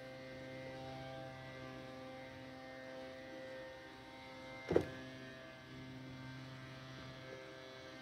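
Faint, steady electrical hum with a buzzy edge, made of several even tones, with one sharp click a little under five seconds in.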